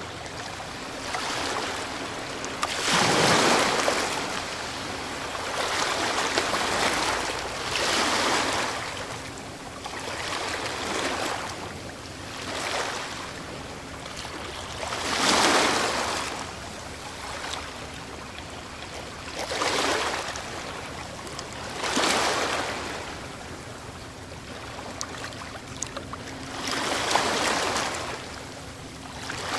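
Ocean waves breaking and washing up the shore, a steady rush of surf that swells into a louder break every few seconds, about eight in half a minute.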